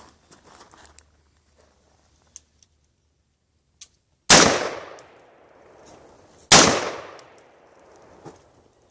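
Two pistol shots about two seconds apart, each loud and sudden with a long fading echo, fired at the head targets.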